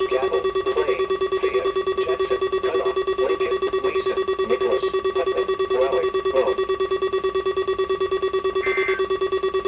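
A weather alert radio's alarm sounding: a loud, rapidly pulsing beep over a steady higher tone, with faint broadcast speech under it for the first six seconds or so. A second, higher two-note beep joins near the end.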